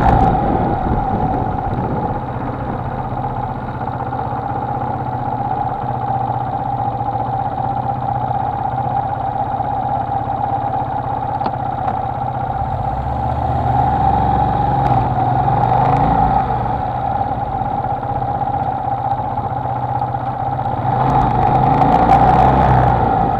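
Honda XLR125R's single-cylinder four-stroke engine running while riding, heard from on the bike. It swells louder twice, about midway and again near the end, as the engine pulls harder.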